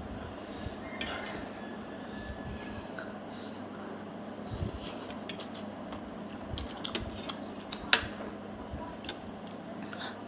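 Eating utensils clicking and scraping against a bowl of noodles during a meal: scattered light clinks, with one sharper click about eight seconds in.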